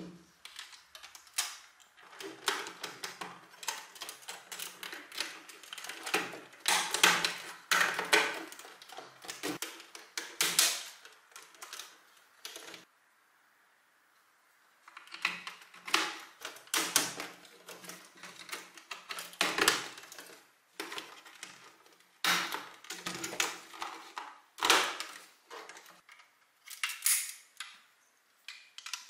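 LEGO Technic plastic beams, pins and parts clicking and knocking as they are handled and pressed together by hand. The clicks come in irregular clusters, with a pause of about two seconds midway.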